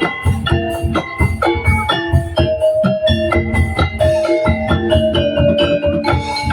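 Tongtek percussion ensemble playing: struck pitched instruments ringing clear melodic notes over drums in a fast, even rhythm of about four strikes a second.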